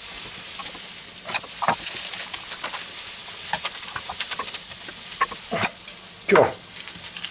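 Steady sizzle of food frying in a pan, with a few short knocks and scrapes of a stainless-steel burger press being pressed and lifted off a patty, the loudest about six seconds in.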